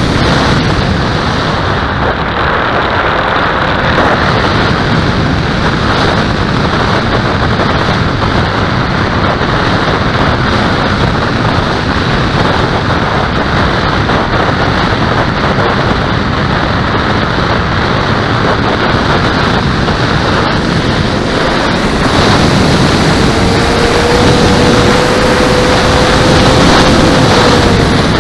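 Loud, steady wind rush over the microphone of a camera mounted on a small model aircraft in flight. A steady tone joins in for the last few seconds.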